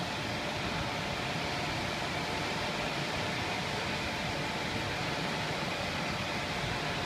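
Conveyor dryer oven for screen-printed and digitally printed garments running with its belt moving: a steady, even rushing noise of its fans and drive.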